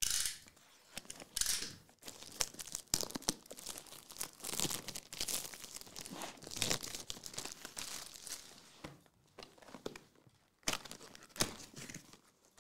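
Plastic shrink wrap on a sealed trading-card box being slit with a box cutter and pulled off, crinkling and tearing in irregular bursts.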